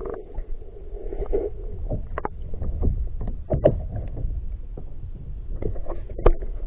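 Muffled underwater sound picked up beside a kayak's propeller drive: a low, continuous water rush with a faint hum that fades after about a second and a half, plus scattered sharp knocks and clicks. It cuts off abruptly at the end.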